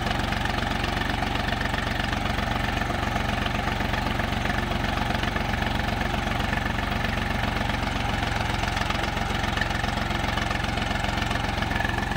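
Swaraj 735 FE tractor's three-cylinder diesel engine running steadily as the tractor, hitched to a loaded sand trolley, works its way out of soft sand.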